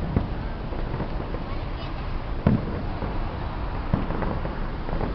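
Fireworks going off: a few sharp bangs over steady background noise. The loudest bang comes about two and a half seconds in and a smaller one about a second and a half later.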